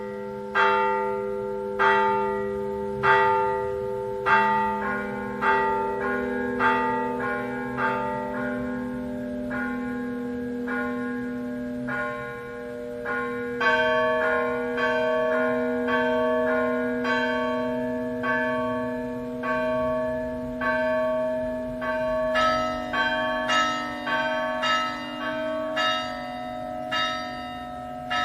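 Church bells ringing, one struck note about every second, each left to ring on. About halfway through, higher bells join in and the strikes come quicker.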